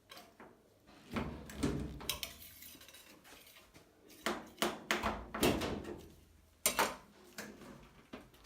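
Irregular clunks, knocks and scraping of hands working on a clothes dryer, with a sharp click near the middle.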